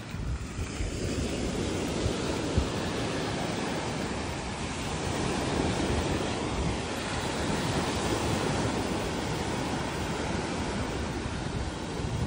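Small surf breaking and washing up onto a shelly beach, a steady rushing wash of water, with wind rumbling on the microphone.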